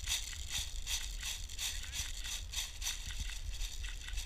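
Irregular crunching and crackling of dry brush and leaves, several crackles a second, as someone moves through vegetation.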